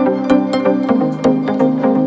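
Background music with a steady beat; the bass notes change about a second in.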